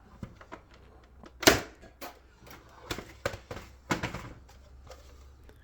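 Nerf Rival Hypnos XIX-1200 pump-action blaster being racked and fired: a series of sharp clacks and clicks, the loudest about a second and a half in.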